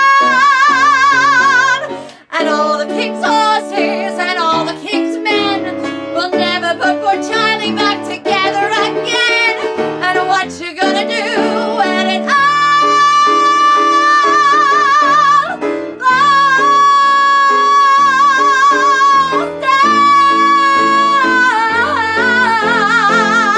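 Female singer holding a long high note with vibrato over a backing track. The note breaks off about two seconds in, and a passage of quick instrumental runs follows. Long sustained high notes then carry on over the accompaniment, with vibrato coming back near the end: the big closing note of a musical theatre number.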